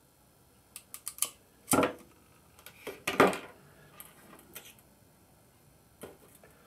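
Ratchet crimping pliers clicking as a terminal is crimped onto a wire: a few quick clicks about a second in, then two louder clacks as the tool is handled and put down on the bench, followed by a few faint handling ticks.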